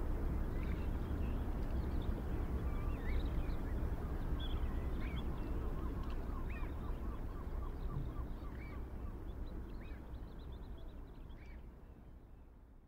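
Surf breaking on a sandy beach as a steady rush, with birds calling now and then over it, including a quick run of repeated notes about halfway through. It all fades out near the end.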